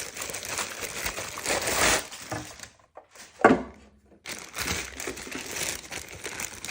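Packaging wrap crinkling and rustling as parts of a new stick vacuum are unwrapped and handled, with a short, loud knock about three and a half seconds in.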